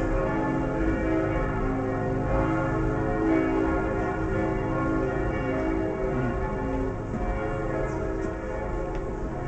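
Church bells pealing, several bells ringing together in a continuous, layered wash of tones.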